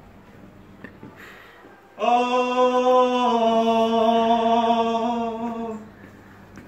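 A man chanting one long held note in a full voice. It starts about two seconds in, drops slightly in pitch partway through, and fades out near the end.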